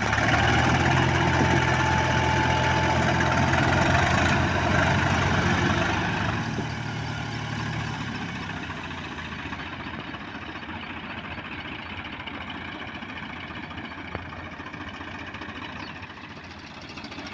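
Diesel tractor engines running hard as the Swaraj 855 FE tries to tow the mired Mahindra 375 out of the mud by chain. About six seconds in, the engine noise drops to a quieter, steady running that sounds like idling.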